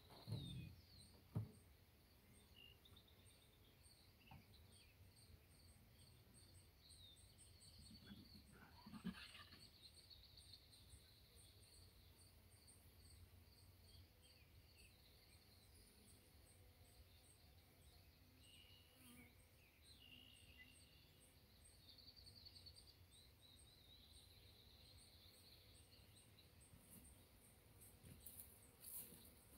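Near silence: faint outdoor ambience with light birdsong, and a couple of sharp knocks in the first second and a half.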